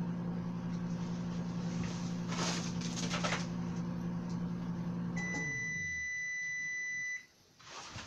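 Microwave oven running with a steady low hum, which winds down and stops about six seconds in, with one long beep of about two seconds as it shuts off: the heating cycle is done.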